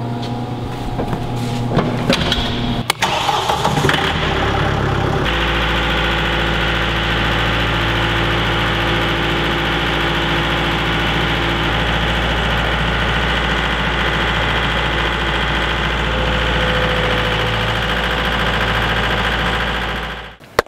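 Mahindra 1533 HST compact tractor's three-cylinder diesel engine starting, then running steadily from about five seconds in, until the sound cuts off near the end.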